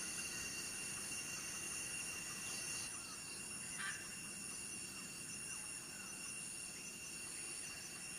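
Steady chorus of insects, several high unbroken tones sounding at once. A short sharp sound comes about four seconds in.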